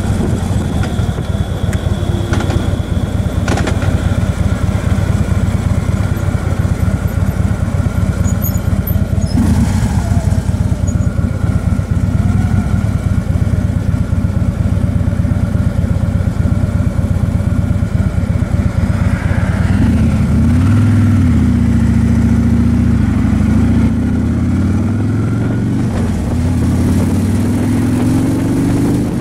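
Motorcycle engine running at road speed under steady wind and road noise; about twenty seconds in the engine note changes, and near the end its pitch climbs.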